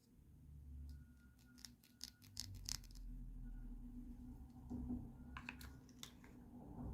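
Light clicks and taps of small plastic toy pieces and packaging being handled, coming in a quick run and then a second cluster near the end.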